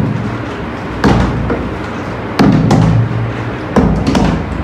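Plastic bottles partly filled with liquid thudding down onto a cloth-covered table as they are flipped, four sharp knocks at uneven intervals of about a second.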